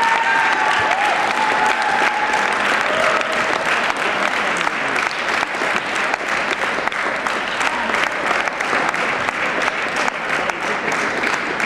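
An audience applauding with dense, steady clapping that eases slightly near the end.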